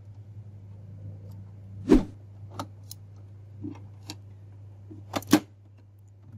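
Plastic clicks and knocks from the cartridge-carriage latch of an HP Ink Tank 315 printer being pressed and flipped open: a loud click about two seconds in, a few lighter ticks, and a quick double click near the end, over a steady low hum.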